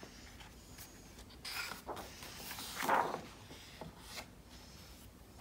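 A page of a hardcover picture book being turned by hand, paper rubbing and rustling, loudest about three seconds in.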